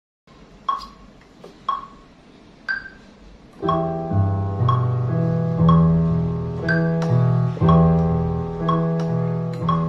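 Keyboard music played on a MIDI controller keyboard, a raw, unprocessed recording. Three single ringing notes come about a second apart, then from about three and a half seconds in a fuller part with a bass line and chords in a steady rhythm.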